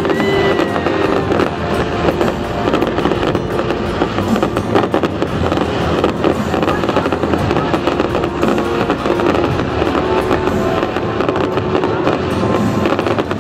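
A fireworks display going off, a dense crackle of many small bursts and bangs without pause, over loud show music.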